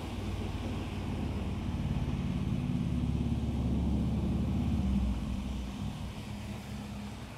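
Heavy rain falling steadily, with a low rumble of thunder that builds over a few seconds, peaks about two-thirds of the way through, and fades away.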